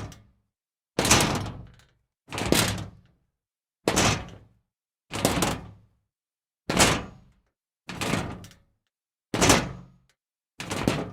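Scrap metal being kicked: a series of eight separate sharp metal impacts, about one every 1.3 seconds, each dying away within about a second.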